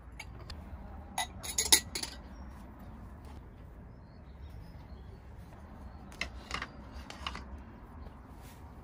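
Hard objects clinking and knocking together as they are handled, in two short clusters: one a little over a second in, the other around six to seven seconds in.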